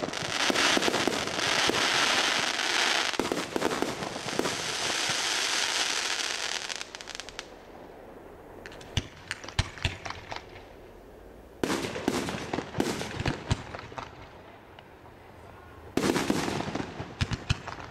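Aerial fireworks going off: several seconds of dense crackling, then, after a lull, clusters of sharp bangs as shells burst.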